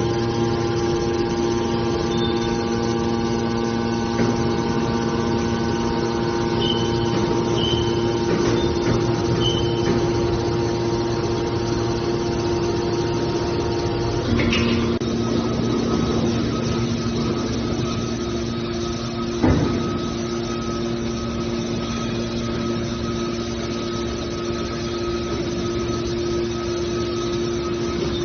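Hydraulic scrap metal baler's power unit running with a steady hum. The pitch shifts about halfway through, as if the machine changes stage, and there is a single knock a few seconds later.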